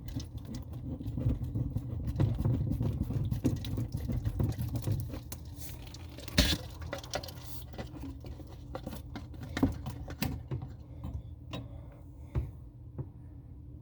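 Scattered clicks, taps and knocks of a wrench and metal fittings being handled under a bathroom sink while a faucet supply line is loosened, with one louder knock about six and a half seconds in. A low steady hum runs underneath.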